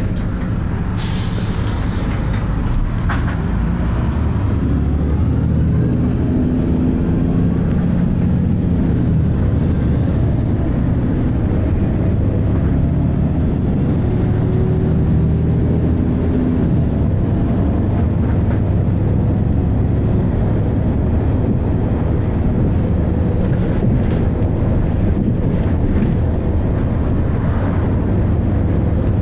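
Volvo B6LE single-deck bus heard from inside, its engine and ZF automatic gearbox running under way, with a burst of air hiss about a second in. A thin, high-pitched whine sits above the engine noise from about four seconds in: the bus's strange high-pitched noise.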